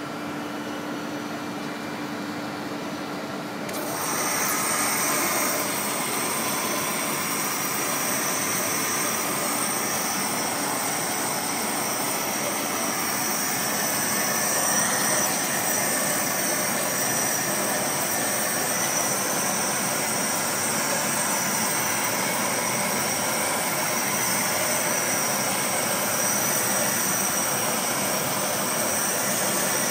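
Laser cutter running while it cuts letters into a dark sheet: a steady machine whir that grows louder about four seconds in, with a steady high whine on top.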